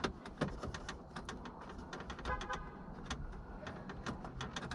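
Scattered light clicks and taps of hard plastic trim and small parts being handled and fitted, irregular and close together.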